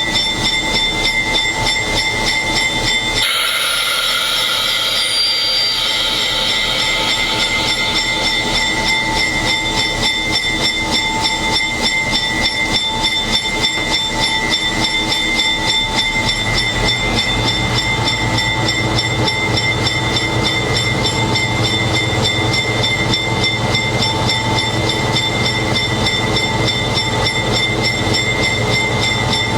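GE 80-ton diesel-electric switcher locomotive heard from inside the cab: the engine runs steadily with a high whine, and about three seconds in a sudden hiss of air breaks out as the air brakes are released, fading away over the next few seconds as the locomotive moves off.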